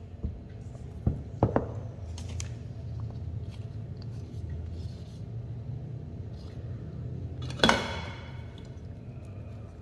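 Bowls and spatulas knocking against each other while dough is scraped between them: a few sharp knocks in the first couple of seconds, then one loud ringing clink near the end. A steady low hum runs underneath.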